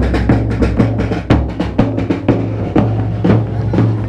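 Background music: a steady, driving drum-kit beat with kick and snare over a sustained bass line.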